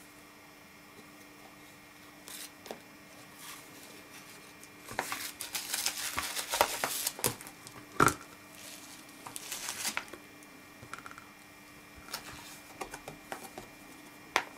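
Plastic packaging and bubble wrap crinkling and rustling as a small solar panel and its clip cable are handled, densest in the middle, with a sharp knock about eight seconds in and a single click near the end.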